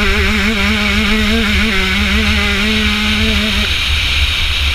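125cc two-stroke motocross bike engine held at high, steady revs, with wind rushing over the onboard microphone. About three and a half seconds in, the engine note drops away as the throttle is closed.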